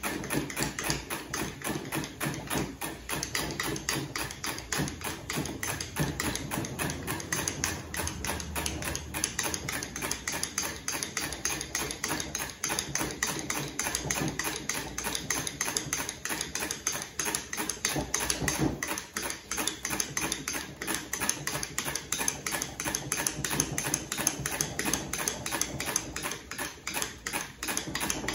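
Hand-cranked friction apparatus being turned fast, with the rope dragging over the spinning metal cylinder: a rapid, regular clatter of several clicks a second.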